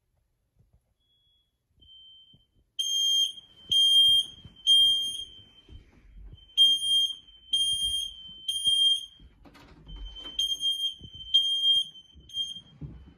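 Smoke alarm sounding its evacuation signal: loud high-pitched beeps in groups of three with short pauses between, starting about three seconds in after a couple of faint chirps. Underneath are thumps and rustles of a child getting out of bed and crawling across the floor.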